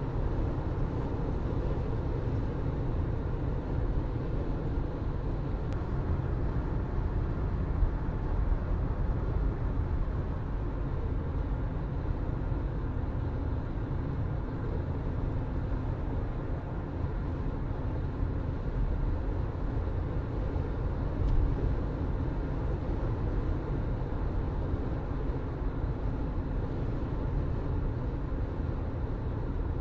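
Car driving steadily along the road: a low, even engine hum with tyre and road noise.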